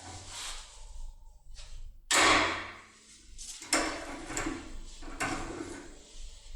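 Metal scraping and clunking of a force key being twisted hard in a double-row-pin cylinder lock, in several separate strokes, the loudest about two seconds in.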